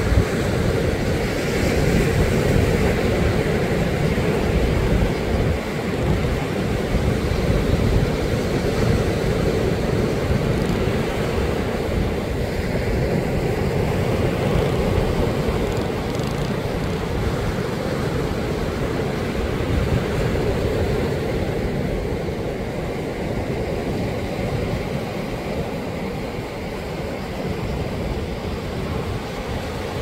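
Ocean surf: small waves breaking and washing up a sandy beach in a steady rush, with wind rumbling on the microphone.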